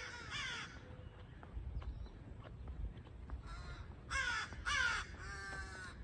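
Crows cawing: one harsh call at the start, then a run of about four caws in the second half.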